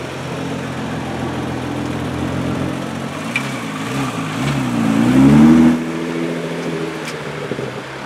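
Nissan GT-R's twin-turbo V6 through an Akrapovič exhaust, running at low revs while the car rolls slowly. A few quick throttle blips about three to four and a half seconds in lead into a longer rev, the loudest moment, that drops back about a second later to a steady low-rev note.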